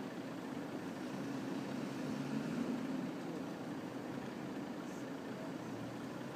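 Pickup truck engine running steadily as the truck works slowly through soft sand, swelling slightly about two seconds in.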